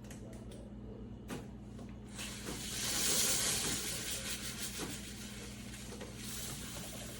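Espresso machine hissing as steam is let out: after a click about a second in, a hiss swells, peaks and fades over a couple of seconds, with a weaker hiss near the end, over a steady low hum.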